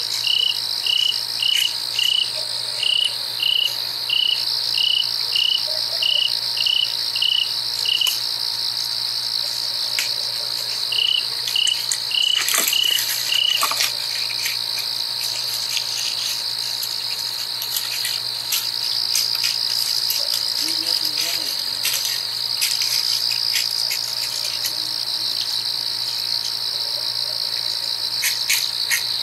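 Night chorus of crickets: a steady high-pitched trill, with one nearby insect giving evenly spaced chirps about one and a half a second for the first eight seconds and again for a couple of seconds a little later. A faint steady low hum lies underneath.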